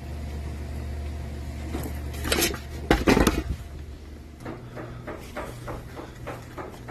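Dishes and cutlery clattering, with a few loud clanks about two to three seconds in and lighter clinks and knocks after, over a low steady hum that stops partway through.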